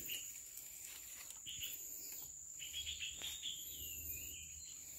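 Forest ambience: a steady, high-pitched insect trill, with scattered bird chirps and high whistles over it.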